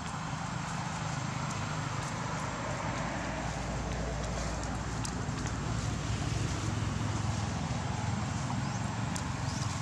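Steady low rumble of outdoor background noise that swells somewhat midway, with a few faint crackles of dry leaf litter.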